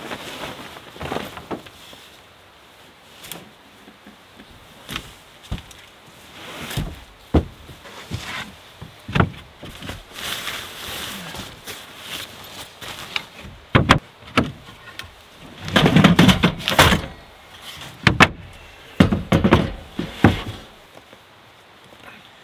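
Irregular knocks, thumps and rustling, like things being moved about and a door being worked, with a dense loud cluster of thumps about three-quarters of the way through.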